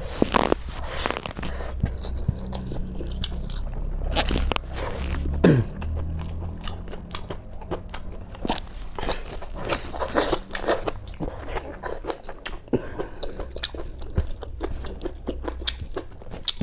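Close-up sounds of a person eating rice and mutton by hand: chewing and biting, with many irregular clicks and smacks of the mouth.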